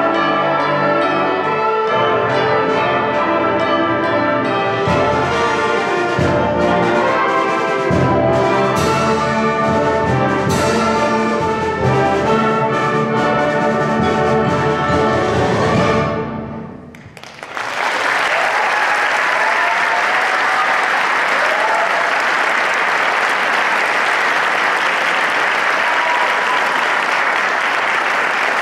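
Concert band of brass, woodwinds and percussion playing loud closing chords with heavy drum strokes, cutting off sharply about sixteen seconds in. Audience applause follows for the rest.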